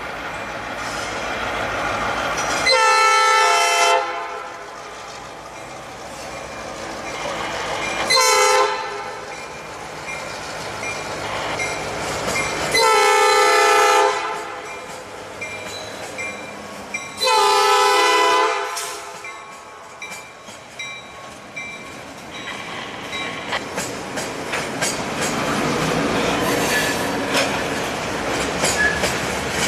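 Norfolk Southern EMD GP38-2 locomotive's multi-chime air horn sounding four blasts, the second one short, over the rumble of the moving train. In the second half the freight cars roll past over the bridge with a steady clatter of wheels on rail.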